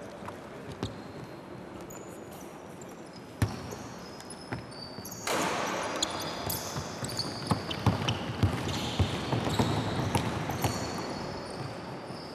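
Basketball play in a gym: a ball bouncing on the court with sneakers squeaking and players running, a few single bounces at first, then busier and louder from about five seconds in.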